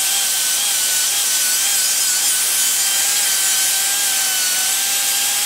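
Small power tool spinning a 60-grit flap disc against the rusty steel of a steering knuckle's wheel-bearing bore, grinding it clean. A steady high whine that wavers slightly in pitch as the disc is pressed in, over a harsh abrasive hiss.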